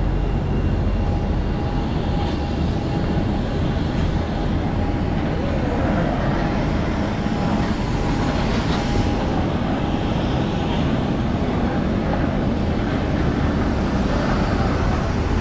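Steady rumble and rushing noise of a moving vehicle, with a faint steady tone through much of it and a few faint squeaks near the end.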